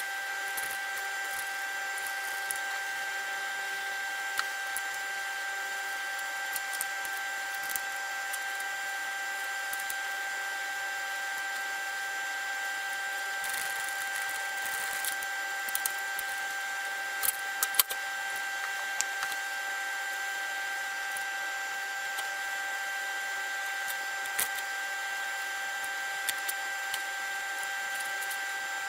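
A small power tool's motor running steadily with a high whine, with scattered light clicks and ticks from the work and a short cluster of louder clicks about two-thirds of the way through.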